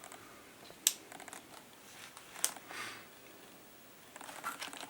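Light handling noises of packs of 3D-printed model parts being sorted: two sharp clicks about one second and two and a half seconds in, with soft rustling of the packaging, picking up again near the end.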